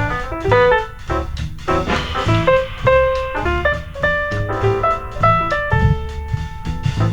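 Jazz piano music with bass and drums, in quick runs of notes. It is played back through a 2019 Samsung Galaxy Buds earbud seated in a silicone ear model and picked up by a mic at the ear canal's outlet.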